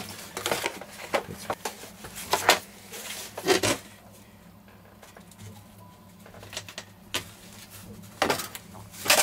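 Scattered handling noises: brief light taps and rustles as a model glider wing and its throwing peg are handled. There are about a dozen short sounds, bunched in the first few seconds, with quieter gaps later.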